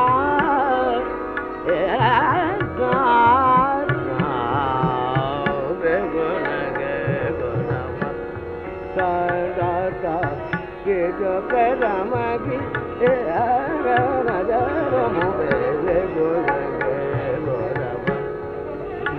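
Hindustani classical vocal in Raga Rageshri: a male voice sings slow, wavering, ornamented lines that glide between notes, over a steady drone with tabla strokes in jhoomra taal. It is an old recording with a dull top end.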